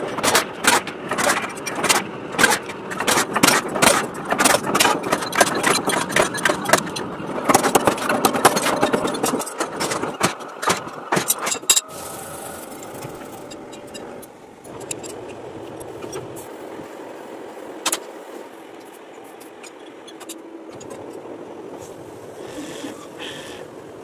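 Factory machinery: a power press punching steel sheet gives a rapid run of sharp metal strikes, about three a second. About halfway this gives way to the steady running noise of machinery, with an occasional click.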